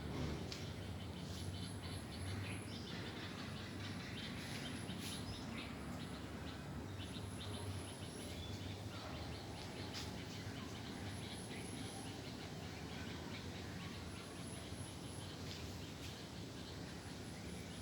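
Outdoor ambience: scattered bird chirps and an insect's high trill coming in short stretches every few seconds, over a steady low background noise.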